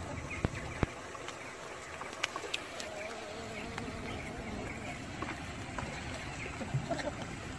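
Penguins' feet slapping and clicking on a wet concrete floor, a few sharp taps scattered through, with a rockhopper penguin hopping, over a faint steady background hum and faint voices.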